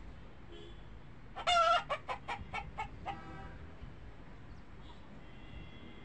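Domestic fowl calling: one loud squawk, then a quick run of about five shorter, fainter clucks.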